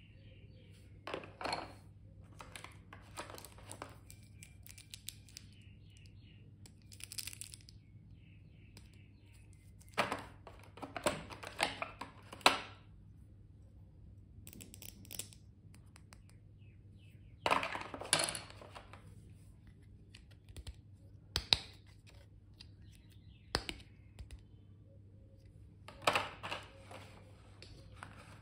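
Stationery and its plastic packaging being handled: scattered rustles, crinkles and light clicks in short bursts a few seconds apart, over a faint steady low hum.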